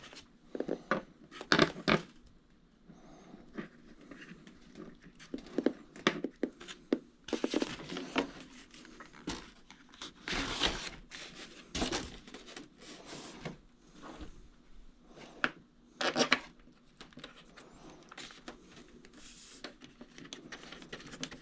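Handling noise from assembling a styrofoam RC airplane: irregular clicks, taps and rustling as threaded knobs are fitted and turned into the foam airframe.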